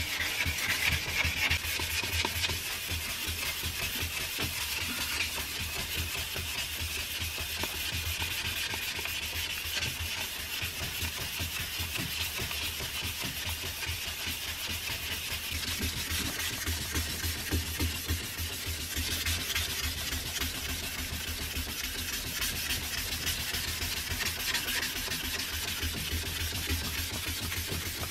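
Abrasive rubbed by hand back and forth over a steel cleaver blade in quick, continuous strokes: hand sanding of the blade's flat.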